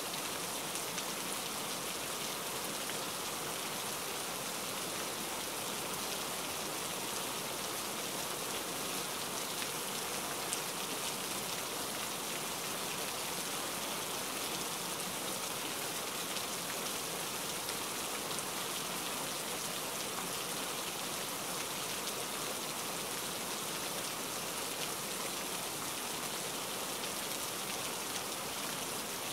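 Steady rain falling: an even hiss of many drops that holds at one level throughout, with a brief louder drop now and then.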